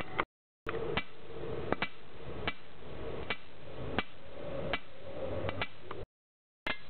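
Sharp, regular clicks about every three-quarters of a second, a few of them doubled, over a steady noisy hum. The sound cuts out to dead silence twice, briefly.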